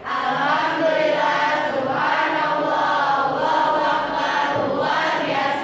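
A class of students reciting a prayer aloud in unison, a steady chant of many voices.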